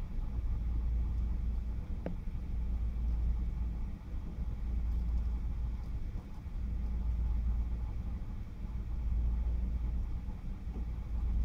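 Low background rumble that swells and fades every few seconds, with one faint click about two seconds in.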